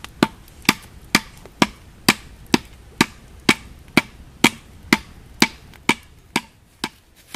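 A machete striking a wooden stake again and again in a steady rhythm, about two blows a second, the last few softer before they stop near the end.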